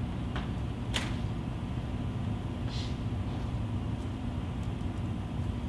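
Steady low rumble of room background noise, with a few faint short clicks and hisses.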